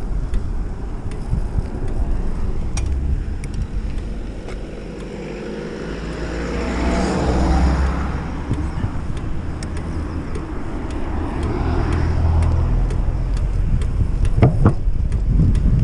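Bicycle ride heard from an on-bike camera: low tyre and road rumble with wind on the microphone, and a rushing sound that swells and fades about halfway through. Faint regular ticks come from the wheel mileometer's striker clicking each wheel turn.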